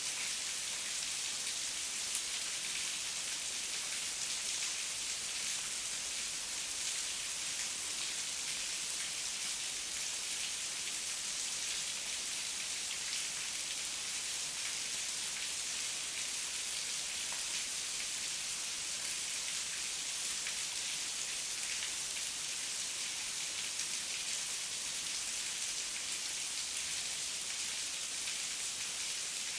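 Heavy rain falling steadily: an even hiss of many drops, with no breaks or swells.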